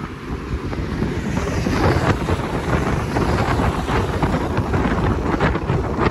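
Wind buffeting the microphone held out of the window of the moving RBDe 4/4 I electric railcar, over the train's running noise on the track. It gets louder about a second and a half in, with a quick run of short rattles through the second half.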